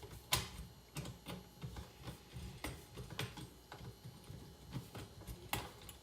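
Screwdriver tightening a terminal screw on a dryer's power-cord terminal block: scattered small metallic clicks and ticks, with sharper clicks about a third of a second in and again near the end.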